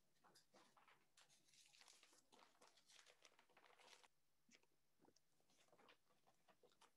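Faint rustling and crinkling of paper as a stack of documents is leafed through, in irregular short bursts, busiest in the first half.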